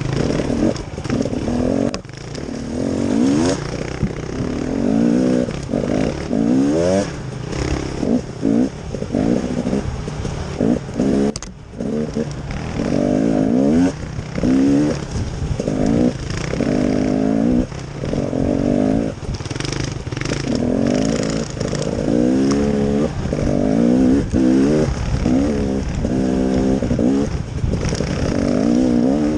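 Off-road vehicle engine running hard on a trail, its pitch rising and falling over and over as it is revved and eased off, with a brief drop about eleven seconds in.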